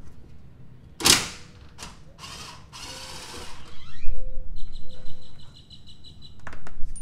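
Cordless impact wrench hammering in short bursts as it backs out a 15 mm steering-rack mounting bolt, followed by a steady high whine and a few sharp clicks near the end.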